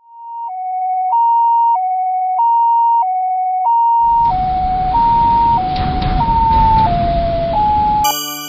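Two-tone ambulance siren alternating between a high and a low tone about every 0.6 seconds, the Japanese "pee-poh" pattern. About four seconds in, a low rumbling noise joins it, and the last few tones sag lower in pitch.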